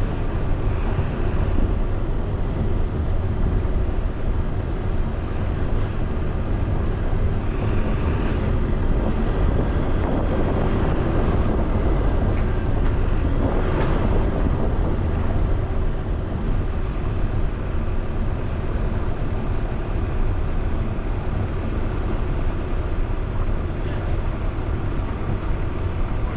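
Car driving at a steady pace: a continuous low rumble of engine and road noise.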